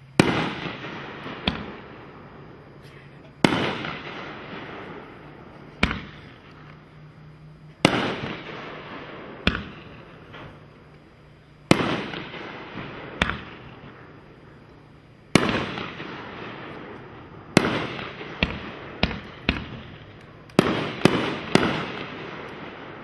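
Red Rhino 'Off the Wall' 500-gram consumer fireworks cake firing aerial shells. Sharp bangs come about every two seconds, each trailing off in a fading hiss, with smaller pops between them and a quicker run of several bangs near the end.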